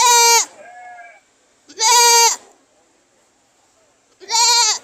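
Goat bleating loudly three times, each call about half a second long and high-pitched, dropping at the end, the last one wavering. A fainter bleat follows the first call.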